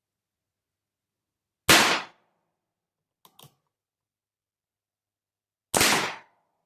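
Two shots from a Pietta 1858 Army percussion (cap-and-ball) revolver firing a light charge of 5 grains of Pyrodex P behind a round ball, about four seconds apart, each with a short ringing tail. A couple of faint clicks fall between the shots.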